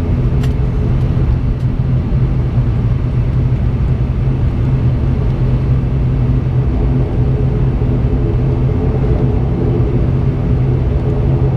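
ATR72-600's Pratt & Whitney PW127M turboprop engine and propeller droning steadily at taxi power, heard inside the cabin next to the propeller: a steady low hum with a strong constant tone and its overtones.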